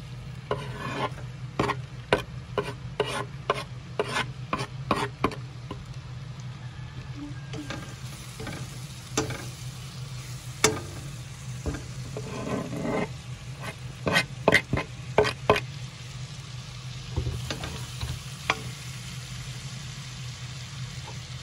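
A metal spoon stirs minced garlic in melting butter in a stainless steel pan, over a light sizzle. The spoon's clicks and scrapes against the pan come in quick runs, through the first five seconds and again from about nine to fifteen seconds in. A steady low hum runs underneath.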